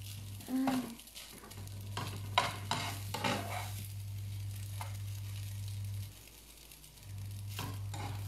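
Faint sizzling from a frying pan of spaghetti and anchovies on the stove, with a cluster of clinks and scrapes of kitchen utensils about two to three and a half seconds in and a few more near the end. A steady low electrical hum cuts out twice for about a second.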